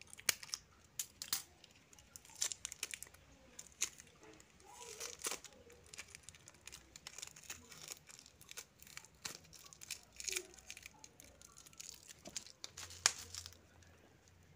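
Blue plastic tape wrapped around a small 2-inch speaker being snipped with scissors and then peeled off and crumpled by hand: a run of sharp snips and clicks with crinkling tears, stopping near the end.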